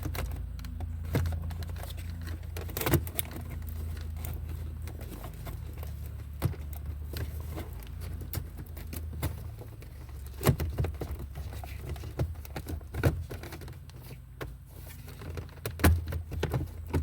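Scattered clicks and knocks of plastic dashboard trim being handled and fitted into place, over a steady low hum.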